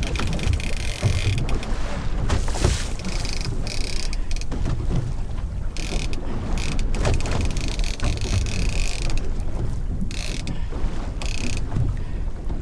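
Fishing reel whirring in several spells, some short and one about three seconds long, while a big fish pulls hard on the bent rod. Steady wind noise on the microphone runs under it.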